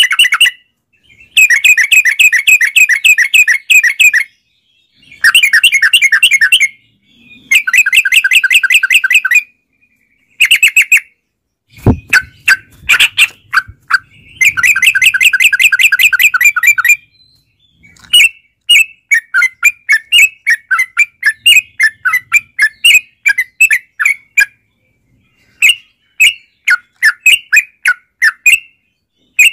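Yellow-vented bulbul song: loud rapid chattering phrases of one to three seconds with short pauses between them, then from about two-thirds of the way through a longer run of quick separate notes. A low thump comes about halfway through.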